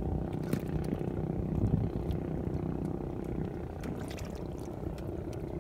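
A small engine running steadily, with water trickling and splashing as the nylon longline is pulled in by hand over the boat's side.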